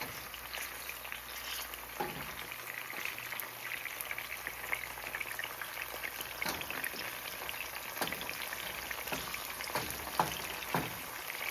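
Mushrooms sizzling in hot olive oil in a frying pan, a steady crackle dotted with small pops. A few short knocks of a wooden spoon stirring them.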